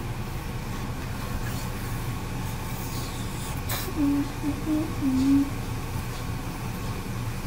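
A child humming a short tune of about four brief, level notes, starting about four seconds in, with a click just before. A steady low hum runs underneath.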